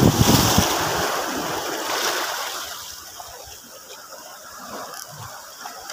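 Small sea waves washing and foaming over a shallow rocky shore, with wind buffeting the microphone in the first second; the wash fades down from about two seconds in.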